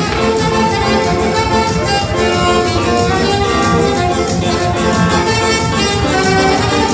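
Live dance band playing an upbeat tune through PA speakers, a saxophone carrying the melody over keyboard and a steady beat.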